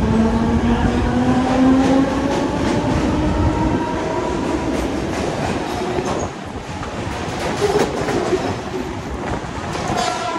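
Mumbai suburban local electric multiple-unit train pulling away: the traction motors' whine rises in pitch over the first couple of seconds, then the wheels clatter over rail joints as it gathers speed.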